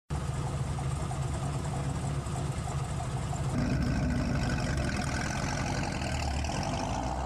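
Car engine idling steadily, growing a little louder and fuller about halfway through.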